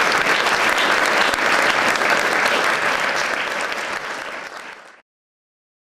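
Audience applauding, fading out over the last second or so and ending abruptly about five seconds in.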